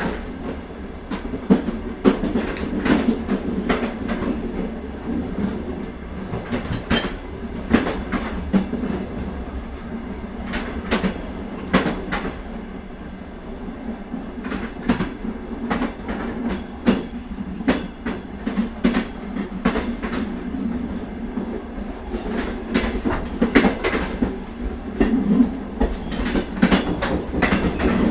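Indian Railways passenger train running along the track: a steady rumble of the moving coaches, with frequent sharp, irregular clacks and clanks of the wheels over rail joints.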